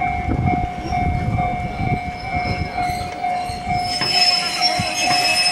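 A railway warning bell ringing steadily, about twice a second, over the chatter of a crowded station platform. A hiss rises about four seconds in.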